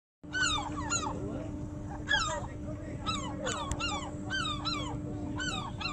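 Gulls calling: a dozen or so short, repeated calls, each sliding down in pitch, with a steady low hum underneath.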